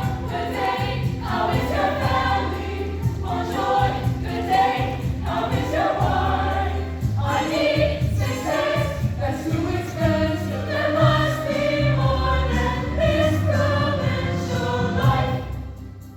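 A high school choir singing a medley in harmony over a steady low bass line; the music dips briefly near the end.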